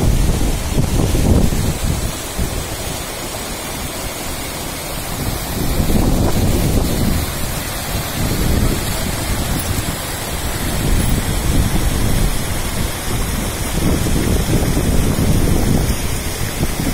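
Wind buffeting the microphone over the steady rush of a muddy, swollen river pouring over boulders, with the low rumble surging louder in gusts near the start, in the middle and near the end.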